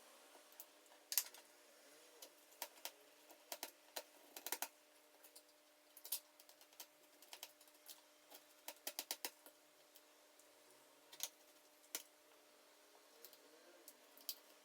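Faint, irregular light clicks and taps of small tools and metal parts, with a quick run of five clicks about nine seconds in, as a MacBook Pro display hinge is unscrewed and readjusted.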